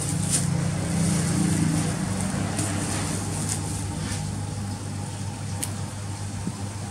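A steady low mechanical hum, a little stronger in the first two seconds, with a few short sharp snaps as leaves are pinched off herb stems.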